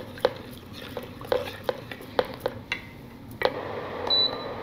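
A spoon stirring a herbal powder and palm-candy mixture in a vessel, with scattered clinks and taps against the pot. About three and a half seconds in, after a sharper click, a steady hiss starts and keeps going.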